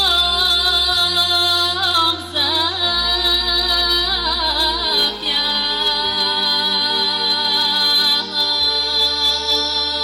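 A woman singing a Bulgarian folk song into a microphone, amplified over loudspeakers, with a live band and a stepping bass line behind her. Her voice moves through wavering, ornamented turns, then holds one long note from about halfway through.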